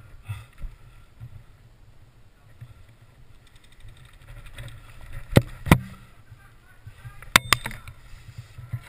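Airsoft rifle shots: two sharp cracks a little past halfway and two more close together near the end, over the rustle and thud of a player moving through long grass with his gear.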